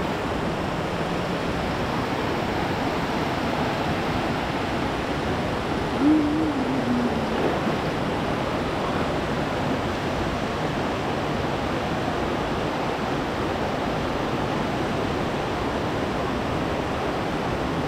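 Steady rush of flowing river water. A brief, wavering voice-like sound is heard about six seconds in.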